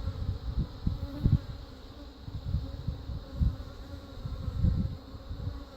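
A swarm-caught, defensive honey bee colony buzzing around the open hive, with many bees in flight. Irregular low rumbling bursts come and go underneath the buzz.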